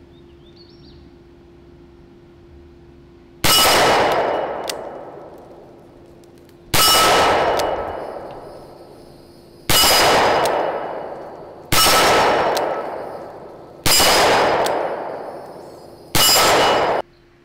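Six single shots from a Smith & Wesson Model 610 10mm revolver, fired slowly two to three seconds apart, emptying its six-round cylinder. Each shot has a long ringing decay, and the last is cut off short.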